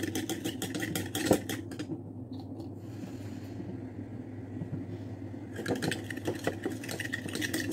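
A small spatula stirring a watery mix of aloe vera gel and rosewater in a small bowl, with quick scraping clicks against the bowl. The stirring stops for about three seconds in the middle and starts again near the end, over a steady low hum.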